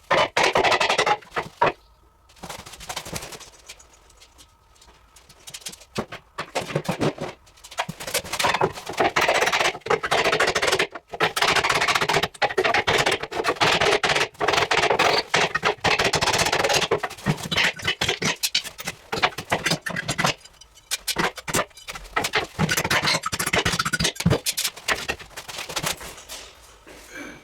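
Busy, irregular clattering, knocking and scraping of hard objects, dense and fast. There is a quieter stretch from about two to seven seconds in.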